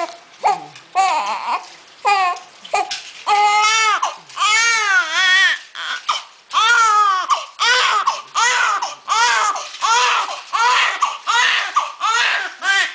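Newborn baby crying in a string of high-pitched cries: long, drawn-out ones at first, then shorter cries in a steady rhythm of about two a second.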